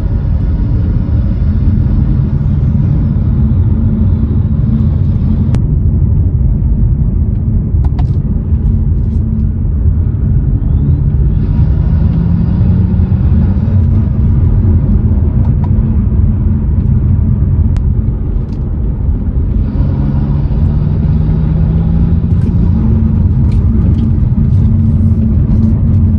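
BMW 335i's N55 turbocharged 3.0-litre inline-six, fitted with a CTS Turbo intake, running under load while driving. The engine note climbs twice, about twelve seconds in and again near twenty, each time with an airy intake and turbo rush.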